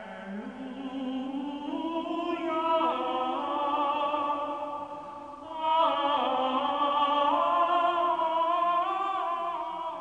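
Soundtrack music of sung voices holding long notes with a slight vibrato, moving to new notes about three seconds and again about five and a half seconds in.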